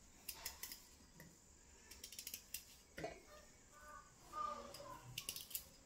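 A small kitchen knife cutting through a hard, raw peeled sweet potato held in the hand: faint crisp clicks in three short runs, with a single sharp tap about three seconds in.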